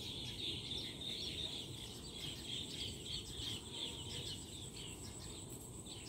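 A flock of small birds twittering: many short, high chirps overlapping continuously.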